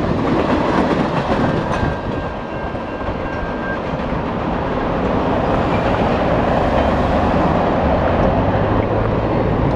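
Canadian National freight cars rolling by, their wheels clicking over the rail joints in the first second or two, then a steady rumbling noise as the tail of the train moves off.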